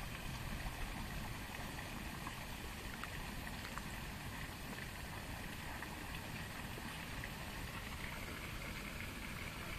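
Steady outdoor background noise: a low rumble with a faint, steady high tone above it, and no distinct events.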